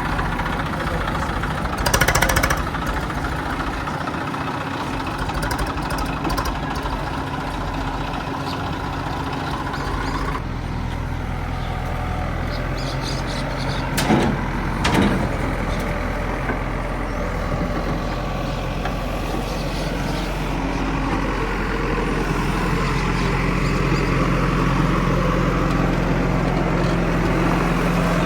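Heavy diesel engines of farm and earth-moving machinery running steadily, with a deeper, steadier engine drone setting in about a third of the way through. There are a few brief louder bursts of hiss, about two seconds in and twice around the middle.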